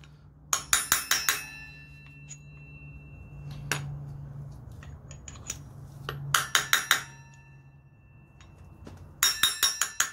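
Ball-peen hammer tapping a steel driver to drive a wheel seal into an ATV front hub: three runs of quick, ringing metal-on-metal taps, about six a second, with pauses between.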